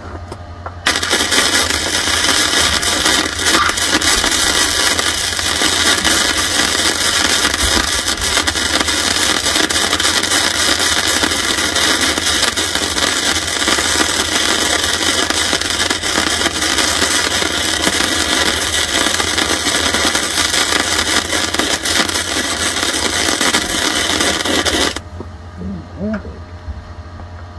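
Wire-feed welding arc from a hzxvogen multi-process welder, burning in one long steady run of about 24 seconds that starts just under a second in and cuts off sharply near the end, with a low hum beneath it throughout.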